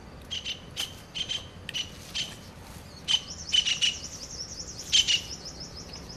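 Wild birds chirping: a string of short, sharp calls, joined about halfway through by a fast, high trill.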